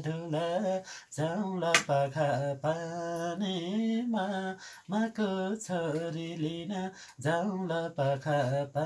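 A man singing a Nepali song solo, unaccompanied, in long held phrases with short breaks for breath about one, five and seven seconds in. A short sharp click about two seconds in.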